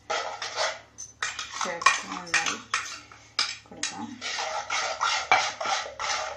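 A metal spoon scraping and clinking against the inside of a stainless-steel mixer-grinder jar in quick, repeated strokes. The scrapes and clinks give way to liquid being poured and stirred in a clay pot.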